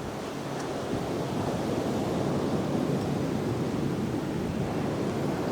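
Ocean surf washing onto a sandy beach: a steady rushing that builds over the first second or so and then holds.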